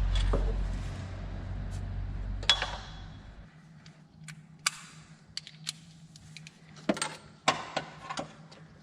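Scattered metallic clinks and taps as a long steel pivot bolt is worked and slid out of an alternator's mounting bracket, with a low hum that stops about a third of the way in.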